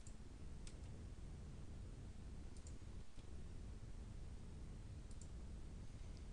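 Computer mouse clicks, faint and sparse: a few single clicks and quick pairs spread over several seconds, over a low steady room hum.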